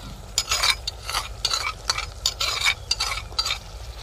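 Steel skimmer spoon stirring yogurt into fried onions in a hot clay cooking pot, scraping in quick repeated strokes about three a second, with the oil sizzling.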